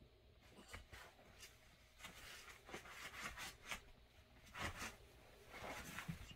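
Two small dogs play-wrestling on a bed: quiet scuffling on the covers with short breathy snorts now and then, coming in irregular bursts that grow busier after the first couple of seconds.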